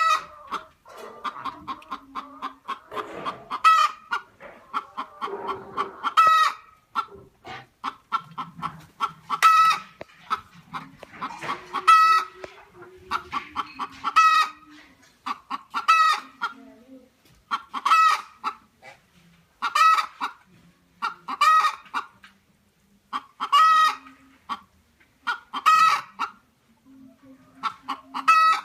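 Domestic chickens clucking. Overlapping calls fill the first few seconds, then one bird calls loudly over and over, about every two seconds.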